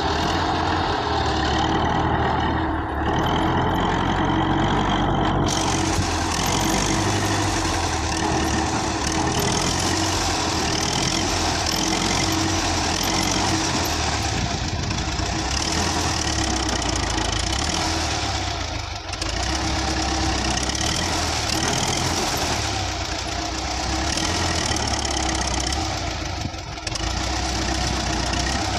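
Russian-built farm tractor's diesel engine running steadily under load while its front blade pushes a tree stump and roots out of sandy ground.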